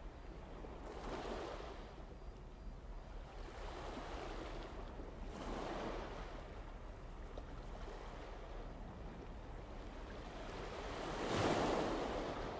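Sea waves washing in slow swells, each rising and falling away over a second or two, several times over; the loudest comes near the end.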